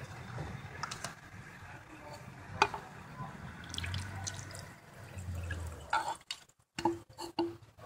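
Sea Foam motor treatment being poured from its plastic bottle through a plastic funnel into a spark plug hole, the liquid trickling and dripping into the cylinder. Light clicks and knocks from handling the bottle and funnel come through, with one sharp click about two and a half seconds in the loudest, and a short break near the end.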